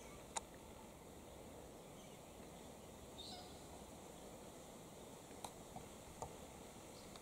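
Quiet bushland ambience: a faint steady hiss, a few sharp clicks, and one brief, faint high bird call about three seconds in.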